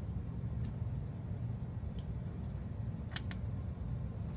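A few faint clicks and taps of a small plastic glitter-glue bottle and its cap being handled, two of them in quick succession about three seconds in, over a steady low background hum.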